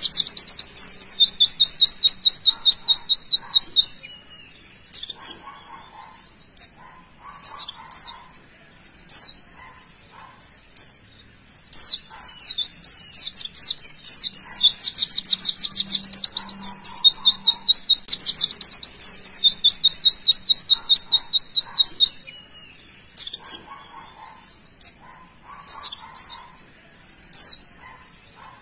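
Caged white-eye (pleci) singing its rapid 'tembakan' bursts: long runs of very fast repeated high notes, twice, broken by spells of separate sharp chirps.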